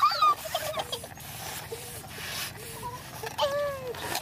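Rubber balloons being blown up and handled: breathy puffs of air and rubbing, squeaky rubber, with a short falling squeal about three and a half seconds in.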